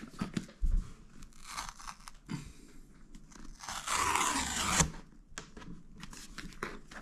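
The tear strip of a cardboard shipping box being ripped open, a tearing noise of about a second in the middle, amid rustling and handling of the cardboard with a low bump under a second in.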